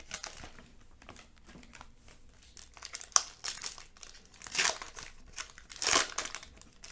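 Foil wrapper of a trading-card pack crinkling in the hands as the pack is opened, in scattered bursts, the loudest about four and a half and six seconds in.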